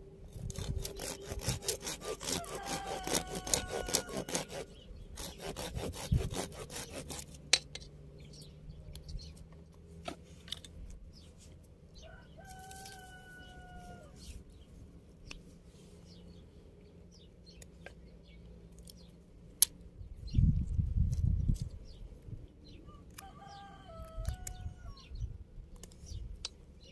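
Hand pruning saw cutting through a woody rose rootstock stem at ground level in quick back-and-forth strokes, stopping about seven seconds in. A rooster crows three times, once over the sawing and twice later.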